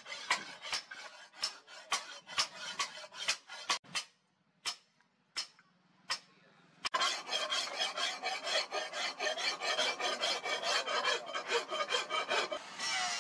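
Hand file rasping across the steel of a cleaver blade forged from a leaf spring, in quick, even strokes about four a second. It pauses for about three seconds around four seconds in, broken by a couple of single strokes, then resumes as faster, denser scraping.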